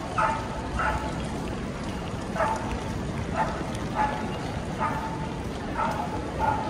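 A dog barking repeatedly: about eight short barks at uneven intervals, over the steady noise of a crowd.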